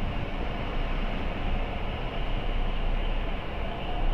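Large mobile crane's diesel engine running steadily under load, a continuous low rumble with a hiss above it, while the hoist pays out cable.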